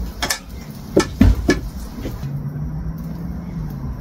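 Kitchen utensils knocking and clinking against dishes, five sharp knocks in the first two seconds, as a spoon and plate are set down and a spatula is picked up. A steady low hum follows.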